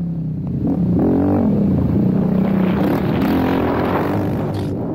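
Suzuki LTR 450 quad's single-cylinder four-stroke engine under throttle through a corner: the revs dip, climb again about a second in and hold steady, with a rushing noise building from about three seconds in.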